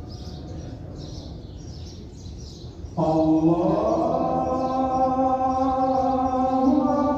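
A muezzin chanting the call to prayer, a single man's voice. After a quieter stretch, a long held note begins about three seconds in, rises in pitch and then holds steady.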